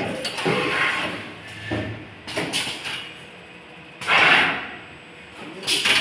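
Automatic lug crimping and ferrule marking machine working: mechanisms clacking in quick strokes, with a loud half-second hiss of air about four seconds in and another burst near the end.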